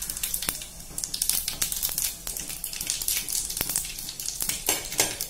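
Cumin seeds crackling in hot oil in a steel pan for a tempering (phodni), an irregular run of sharp little pops. The crackle is the sign that the oil is hot enough and the cumin is frying.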